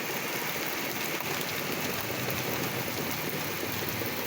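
Heavy rain mixed with hail pouring down in a severe thunderstorm, a steady, even hiss.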